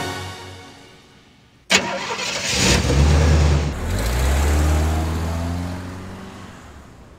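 Music fading out, then a sharp click and a car engine sound effect starting up and revving in rising sweeps before dying away.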